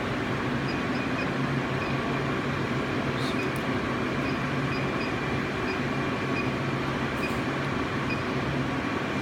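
Continuous inkjet coding printer running: a steady mechanical hum and hiss from its ink system.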